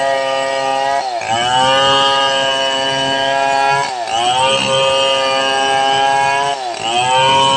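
Homemade two-stroke chainsaw built to resemble a Stihl 070, running at high revs while ripping a medang log lengthwise into planks. Its pitch sags briefly and climbs back three times as the chain bites and clears the cut.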